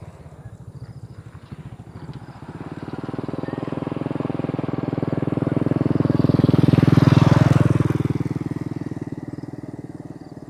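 A passing vehicle's engine: a steady engine hum grows louder, peaks about seven seconds in, then fades away.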